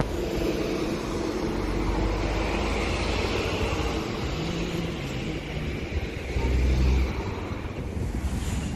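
Road traffic: vehicle engines running steadily, with a louder low rumble about six and a half seconds in.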